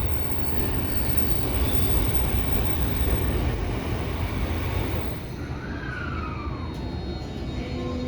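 Running noise inside a Tokyo Metro 05 series subway car with a Toshiba IGBT-VVVF inverter and permanent-magnet motors: a steady rumble of wheels and motors. A short falling whine comes about six seconds in.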